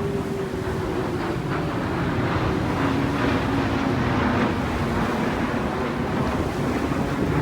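Wind buffeting the microphone over lapping waves, with a passing engine's drone whose pitch slowly falls.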